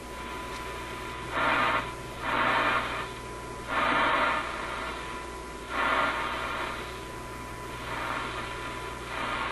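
RCA A25 vacuum-tube shortwave radio's speaker hissing, the static swelling up in several short surges as the tuning is rocked back and forth across a test signal, over a steady low hum and a faint steady high tone.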